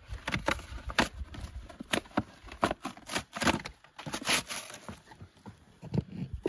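Irregular knocks, clicks and rustling from handling firewood and a small box while laying a campfire, with a stretch of louder rustling about halfway through.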